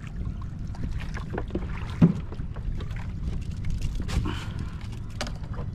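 Water slapping against a small wooden outrigger boat's hull with wind buffeting the microphone, under a scatter of knocks and rattles from gear being handled on board. The loudest is a single thump about two seconds in.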